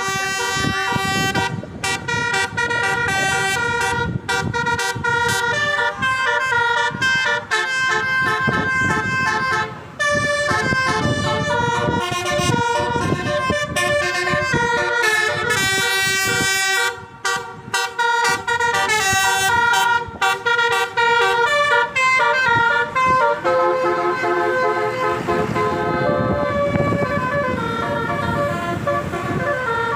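A bus's multi-tone telolet air horn playing a melody in quick stepped notes, over and over, with a couple of brief breaks, over vehicle rumble.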